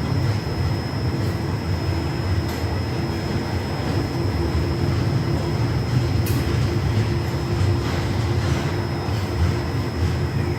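Passenger train running, a steady rumble of wheels on rail with a faint steady whine and a few sharp clicks.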